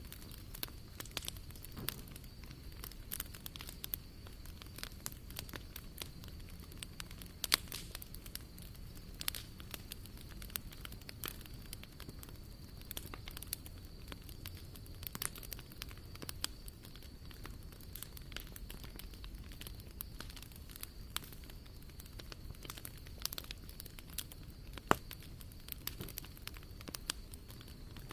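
Wood fire crackling, with many irregular sharp pops and snaps over a low steady rumble of the flames; the loudest pops come about seven seconds in and near the end.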